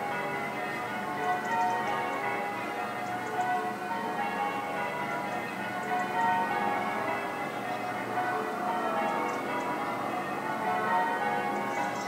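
Church bells pealing: many bells ring at once in a continuous, dense wash of overlapping sustained tones.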